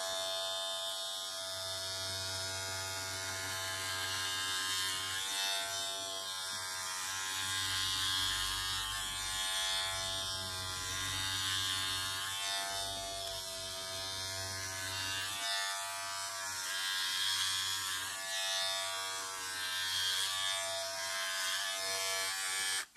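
Braun Silk-épil 9 Flex epilator with its shaver head fitted, running as it is drawn over the shin: a steady electric motor hum. It switches off just before the end.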